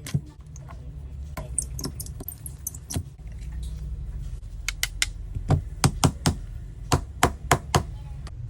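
Sharp clicks and taps of hand work on an iPhone during a display repair: a few scattered ones, then a quick run of about a dozen over the second half, over a steady low hum.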